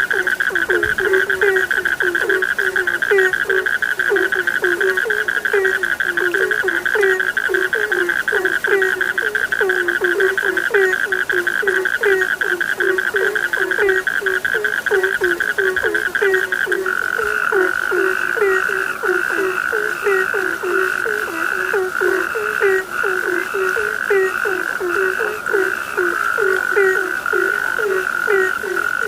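Chorus of frogs calling: a continuous high trill with low croaks repeating about twice a second and scattered short chirps. About two-thirds of the way through, the high trill drops slightly in pitch and becomes steadier.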